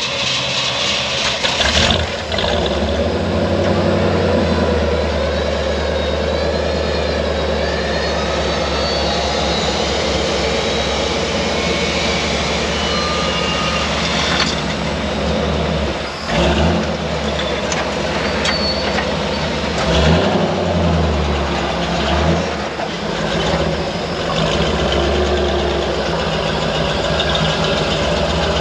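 Truck engines running steadily, with a higher wavering whine over them in the first half.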